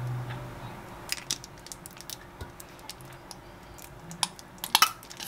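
Light, scattered clicks and ticks of plastic squeeze bottles being handled and squeezed as sauce and mayonnaise are drizzled over takoyaki. A louder quick cluster of clicks comes near the end.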